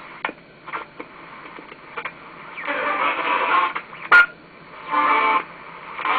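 AM broadcast radio crackling and buzzing with interference picked up from a Thomas Oscillator LED driver circuit, the audio feedback between circuit and radio. Scattered clicks, with a rough buzzing burst about three seconds in, a sharp snap just after four seconds, and a second, pitched buzzing burst about five seconds in.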